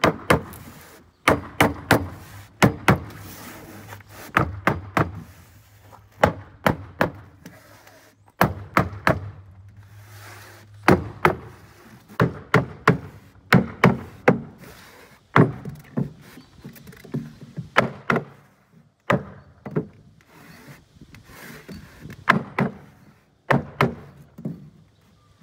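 Claw hammer knocking on a timber block laid across foam insulation board, driving the board down into its frame for a friction fit. The blows come in quick bursts of several knocks with short pauses between.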